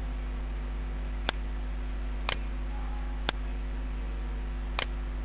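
Four short computer mouse clicks, roughly a second apart, over a steady low electrical hum.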